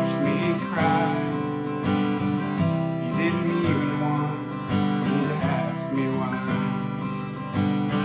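Acoustic guitar, partly home-built and still unfinished, strummed in a steady rhythm with the chords ringing between strokes.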